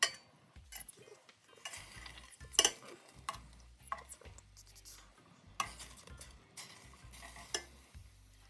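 A cooking utensil stirring and scraping in a pot of frying chicken, with sharp knocks against the pot and light sizzling.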